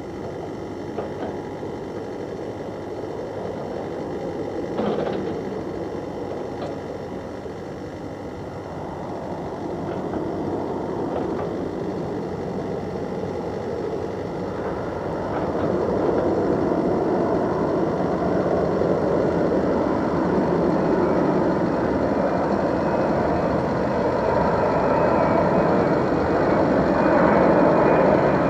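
Four Kuznetsov NK-86 turbofans of an Ilyushin Il-80 (Il-86VKP) airborne command post on approach: a steady jet rumble that grows louder as the aircraft comes closer, rising most clearly about halfway through.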